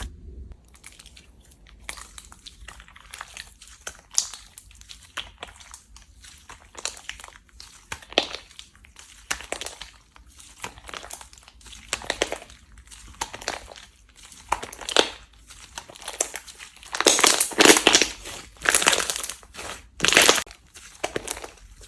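Slime being squeezed and pressed by hand: a run of irregular short squishing bursts, growing longer and louder about three quarters of the way through.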